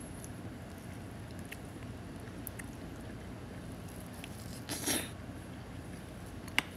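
A plastic spoon stirring sticky natto and egg in a ceramic rice bowl: faint clicks and soft squishing against a steady room hum, with one louder short rustle about five seconds in and a sharp click near the end.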